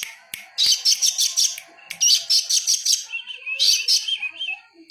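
A songbird singing in bursts of rapid, high chirping, each phrase about a second long, with a wavering whistled trill in the second half.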